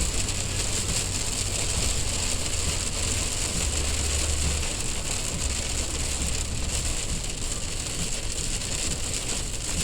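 Heavy rain pelting the roof and windshield of a moving car, heard from inside the cabin as a steady hiss, with a low rumble of the car driving underneath.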